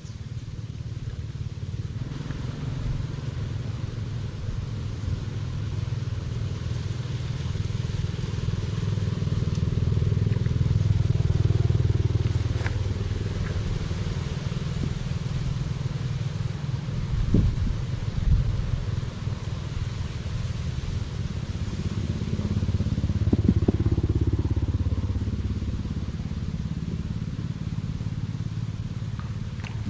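Low rumble of road traffic, swelling twice as vehicles pass and fading between, with a couple of short knocks in the middle.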